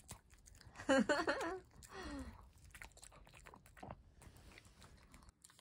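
A chihuahua chewing a piece of strawberry: a run of small, irregular crunching and biting clicks. A person's voice sounds briefly about a second in.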